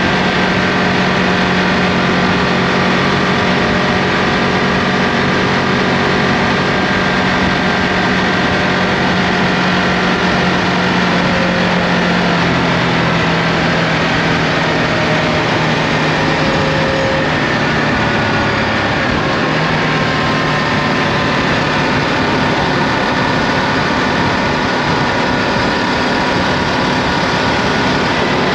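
Ducati Multistrada V2S's 937 cc L-twin engine running steadily under way, over a steady rush of wind noise. The engine note drops a little about twelve seconds in, then holds.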